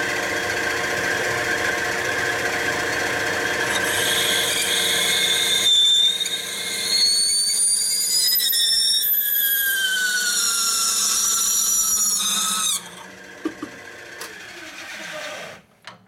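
Drill press running an adjustable reamer through a hole in a Harley 45 flathead cylinder head, the reamer squealing like chalk on a board with shrill tones that slide up and down. The chatter is wearing out the brand-new reamer. Machine and squeal stop suddenly near the end, followed by a few light clicks.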